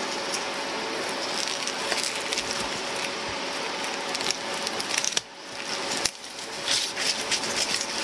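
Gloved hands working gimbap fillings and rolling a bamboo sushi mat: dense rustling and crinkling with many small clicks of the bamboo slats. The sound drops away abruptly twice past the middle.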